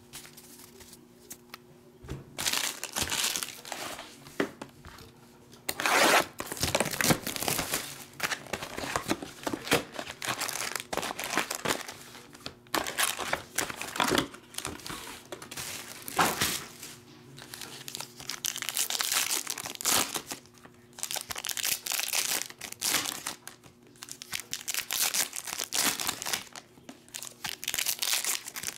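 Foil trading-card pack wrappers crinkling and tearing as they are handled and ripped open by hand, in irregular crackly bursts that start about two seconds in.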